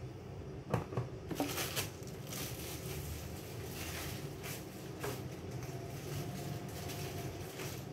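Kitchen handling noises: a cluster of sharp knocks and clatters about a second in, then lighter scattered taps and scrapes, over a steady low hum.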